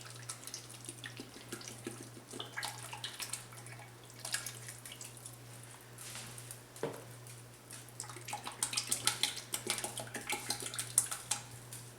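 Heavy whipping cream being poured into a pot of potato soup: irregular liquid splashing and glugging, busiest near the end.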